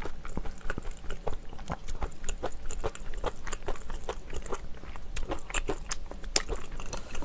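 Close-miked chewing of a mouthful of rice and kimchi stew: a steady, irregular run of small wet clicks and smacks from the mouth.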